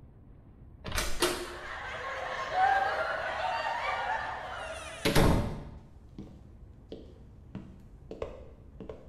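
A door knocks sharply about a second in, a noisy sound with wavering tones follows for about four seconds, and the door slams shut loudly about five seconds in. A few faint taps follow.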